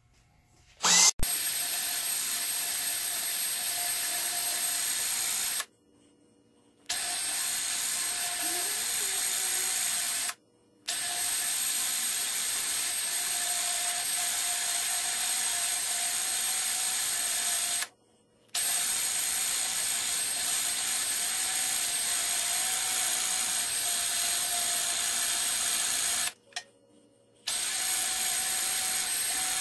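Cordless drill running at a steady speed with an abrasive disc in its chuck, a gage block held against the spinning disc: a steady grinding hiss over a thin motor whine. It starts with a click about a second in and cuts out abruptly four times for up to about a second each.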